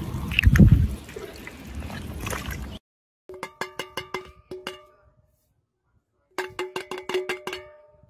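Water splashing and trickling around a rubber boot in shallow muddy water, loudest in the first second, cutting off suddenly near the three-second mark. Then two runs of quick metallic knocks, each ringing at a clear pitch, as a metal tin is knocked against a ceramic mug.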